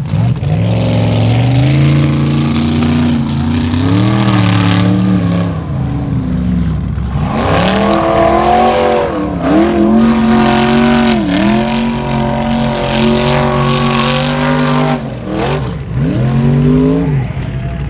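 Formula Offroad buggy's race engine revving hard under full throttle. The pitch drops and climbs back several times as the throttle is lifted and reapplied.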